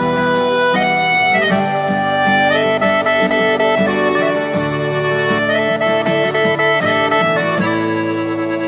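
Piano accordion playing the melody of a song's instrumental intro in sustained, reedy notes over lower bass notes.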